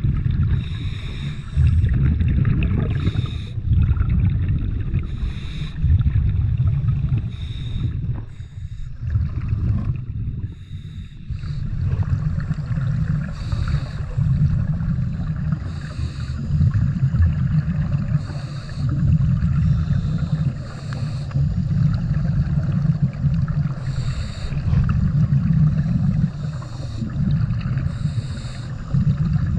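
Scuba diver breathing through a regulator underwater: a short hiss on each inhale alternating with a longer rumble of exhaust bubbles on each exhale, repeating every two to three seconds.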